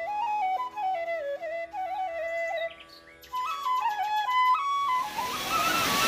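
Background music: a flute melody over a steady drone, pausing briefly about halfway through, then going on at a higher pitch. Near the end, the rushing water of a dam spillway fades in under it.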